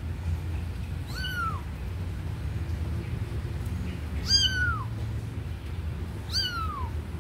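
Kitten meowing three times, high calls that each fall in pitch, over a steady low hum.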